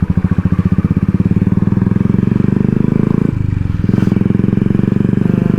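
Royal Enfield Classic 350's single-cylinder engine running loud through an aftermarket exhaust, a fast even beat of exhaust pulses while riding. The throttle comes off briefly a little past three seconds in, then picks up again.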